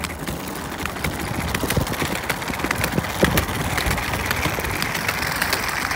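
Continuous rough clattering and scraping noise full of small clicks, from fast movement along a concrete sidewalk.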